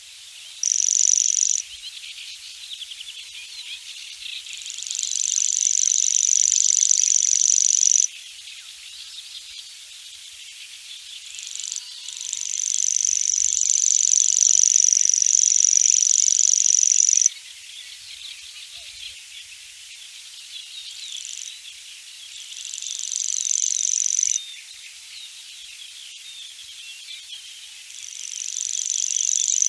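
A grasshopper singing a high, shrill buzz in repeated bursts, each swelling up over a few seconds and then cutting off abruptly. The first burst is short and the later ones last three to five seconds. Underneath runs a steady background of chirping.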